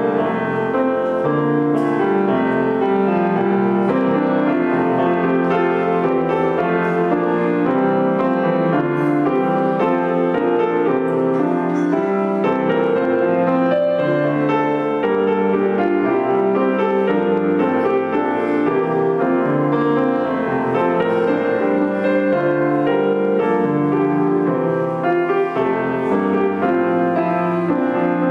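Piano music playing steadily for the entrance procession of a Mass.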